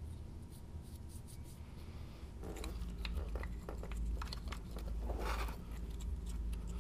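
Gloved hands handling a crankshaft position sensor with its new rubber O-ring and working around the oil pan: scattered faint clicks at first, then busier small clicks, scrapes and rustles from about two and a half seconds in.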